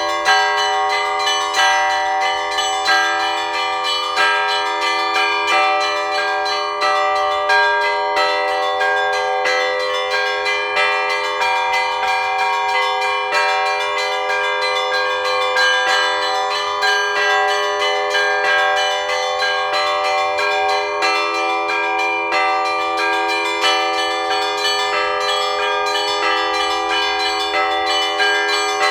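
Russian Orthodox church bells rung in a festive peal for the all-night vigil of a feast day: many bells of different pitches struck in a quick, continuous pattern without a pause, the tones overlapping and ringing on.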